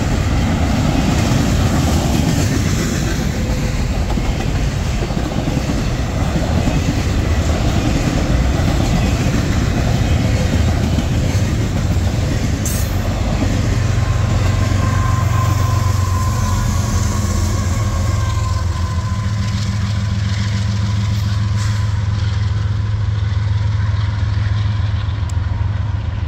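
Freight train rolling past, its steel wheels clattering over the rail joints. From about halfway through, the rolling noise eases and a steady low hum comes to the fore.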